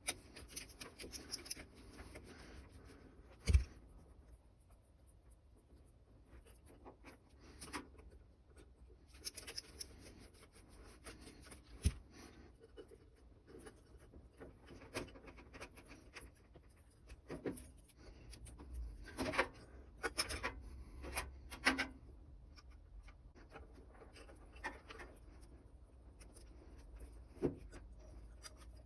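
Faint hand-handling noises from work on an RV furnace's parts, likely fitting the replacement sail switch: scattered small clicks and rubbing, with a few sharper knocks and a cluster of clicks in the second half.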